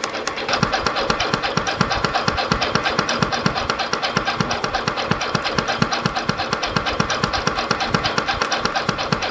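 CF-308 CNC spring coiling machine running, feeding and coiling 0.4 mm wire into variable-pitch compression springs: a rapid, steady mechanical clatter of several strokes a second that gets a little louder about half a second in.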